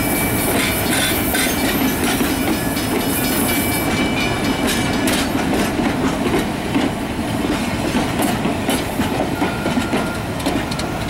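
Narrow-gauge railroad cars rolling past, their steel wheels clicking over the rail joints with a steady rumble.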